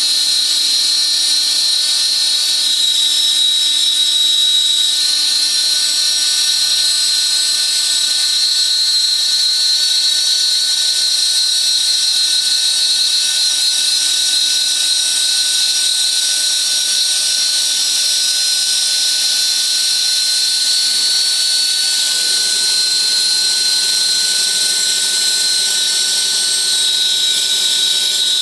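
CNC glass slotting and milling router's spindle running steadily at high speed: a high-pitched whine over a hiss. A lower hum joins about 22 seconds in.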